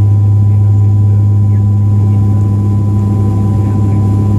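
Cabin drone of a British Aerospace ATP's Pratt & Whitney PW126 turboprops and six-bladed propellers in the climb after takeoff: a loud, steady low hum with a fainter high whine above it, heard from inside the cabin.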